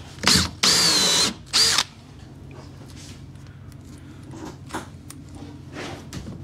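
Cordless drill with a 3/4-inch Forstner bit and depth stop counterboring a bolt hole in a deck board. It runs in three short bursts in the first two seconds, the last one brief. After that only faint handling clicks are heard as the chips are cleared from the bit.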